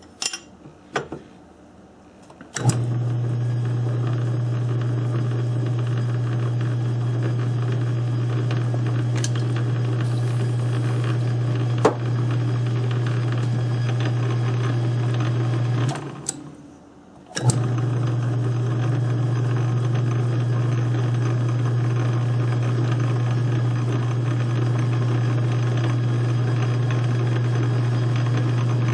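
South Bend lathe switched on about two and a half seconds in, running with a steady motor hum while a knurling tool rolls a knurl onto the turning shaft. It stops briefly past the middle and starts again.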